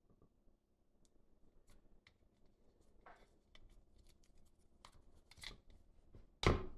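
Faint rustling and small clicks of PTFE (Teflon) thread seal tape being wrapped by hand around a plastic threaded fitting, with a sharper click near the end.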